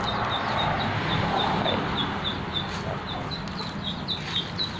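Chicks of native Thai chickens peeping: a steady stream of short, high, falling peeps, several a second.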